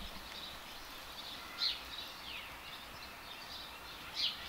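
Small birds chirping in short, high calls and quick falling notes over a steady background hiss, with two louder chirps, one about a second and a half in and one near the end.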